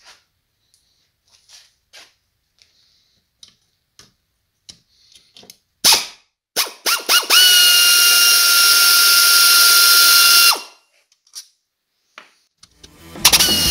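Pneumatic air ratchet spinning out case bolts. It gives a few short blips, then a loud steady high whine over air hiss for about three seconds, then runs again near the end.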